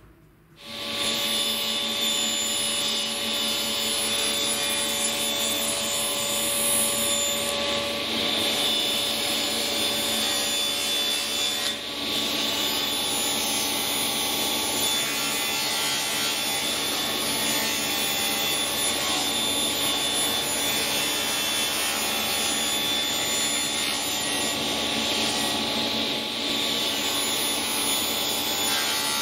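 Electric saw ripping 12 mm multiplex plywood into 16 mm strips: the motor and blade come up to a steady run about a second in and keep cutting evenly, with one short dip near the middle.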